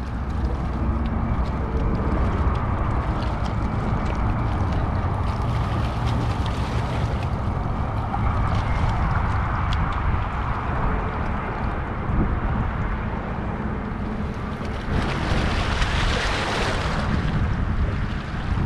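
Wind buffeting the microphone over a steady low rumble, with a stronger rush of hiss lasting about two seconds near the end.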